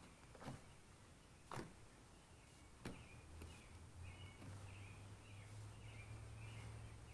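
Near silence, with three or four faint knocks in the first half, then a faint low hum and a soft chirping that repeats about twice a second.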